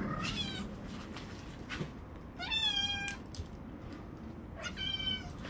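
Kitten meowing three times in high-pitched calls, the middle one, about two and a half seconds in, the longest and loudest.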